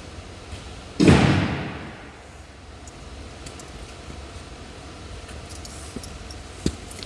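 A loud metallic clatter about a second in, dying away over about a second, then a small knock near the end.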